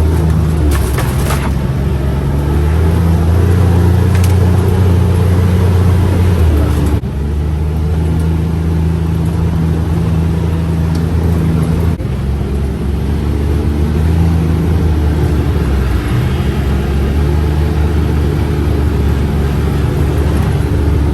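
UTV engine running steadily while the vehicle is driven, a low drone whose pitch and level change abruptly about seven and twelve seconds in.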